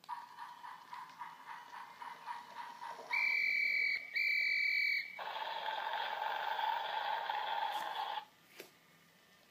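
Electronic sound effects from a Brio battery toy train's small speaker, set off by pressing its button: a pulsing tone, then two long beeps like a horn, then a rushing train noise that cuts off suddenly.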